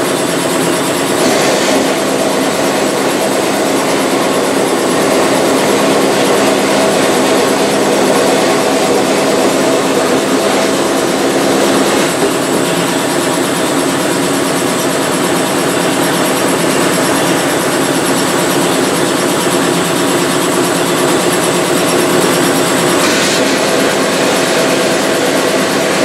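Vapor blasting cabinet in use: a steady, loud hiss of the blast gun spraying a water-and-abrasive slurry at about 60 PSI onto a brake caliper bracket, with a steady hum underneath.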